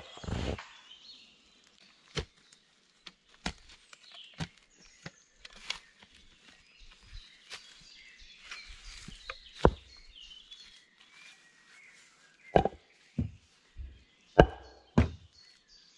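A hand tool striking wood in single, irregularly spaced knocks, the blows louder near the end. Birds chirp in the background.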